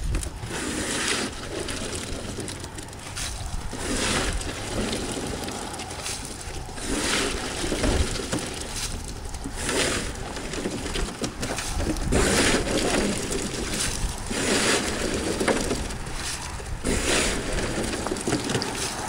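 A plastic scoop scraped through a pile of live crawfish on a boat's floor, about seven strokes two to three seconds apart, each a rattling scrape of shells lasting about a second.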